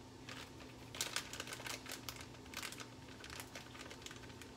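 Plastic shredded-cheese bag crinkling in the hand as cheese is shaken out of it: a run of small, irregular crackles and ticks. A faint steady hum lies underneath.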